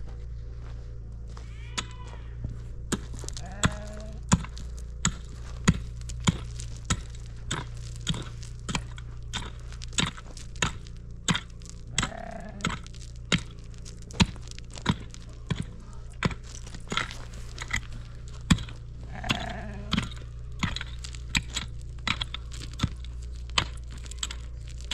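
Hand mattock striking stony, rocky ground in steady repeated blows, about three strikes every two seconds, each a sharp crack of metal into stone and earth.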